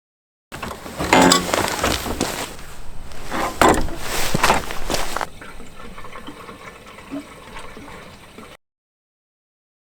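Water being poured into a cooking pot, loudest over the first few seconds and quieter after, with the sound cutting in about half a second in and cutting off abruptly before the end.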